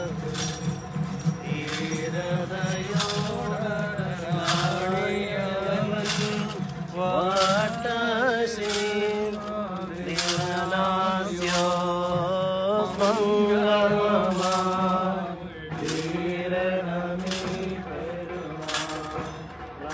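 A group of men chanting a liturgical hymn together while walking in procession, with a short metallic clash or jingle marking the chant about every one and a half seconds.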